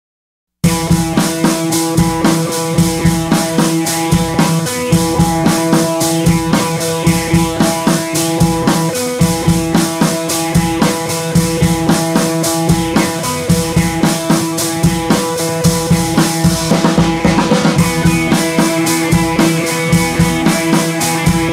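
Background music with a steady drum beat over held instrumental tones, starting after a brief silent gap.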